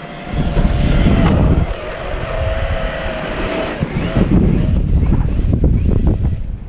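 Electric RC monster truck running hard, its brushless motor whining over a rough rumbling noise, the whine holding then dropping away about four seconds in.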